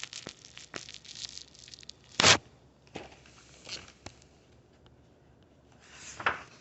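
Paper rustling from a picture book's pages being turned: a short, sharp swish about two seconds in and another near the end, with small taps and clicks between.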